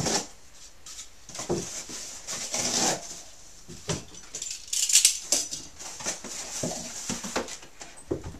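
Cardboard packaging rustling and scraping, with irregular knocks, as scratching-post parts are pulled out of their box.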